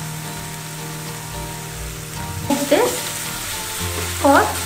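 Curd capsicum masala sizzling softly in a nonstick frying pan on low heat. About halfway through, a spatula scrapes and stirs through it twice, each stroke making a short squeak on the pan.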